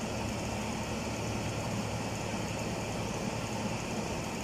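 Steady low machine hum with a broad hiss over it, unchanging throughout: some motor or engine running in the workshop.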